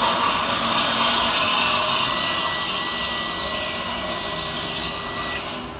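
Electric tailgate lift struts on a Mazda Biante running with a steady mechanical whir, joined by a thin high whine for about three seconds in the middle. The sound drops away abruptly at the very end.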